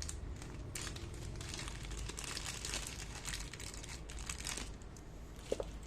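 Crinkling plastic packaging around the keyboard's bundled keycap set as it is handled and opened, a string of rustles over a few seconds.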